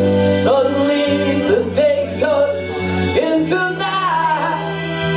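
Live acoustic band playing a song: a man singing, coming in about half a second in, over acoustic guitar, electric bass guitar and a sustained keyboard chord.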